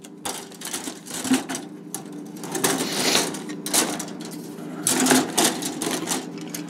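Plastic model-kit runners (sprues) clattering and rattling on and off as they are handled and fitted back into a cardboard box, with louder clatters about three and five seconds in.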